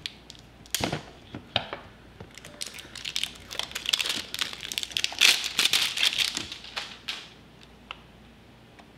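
Plastic packaging crinkling as a small wrapped accessory is unwrapped by hand. A few sharp clicks come first, then a long stretch of dense crinkling that stops about two seconds before the end.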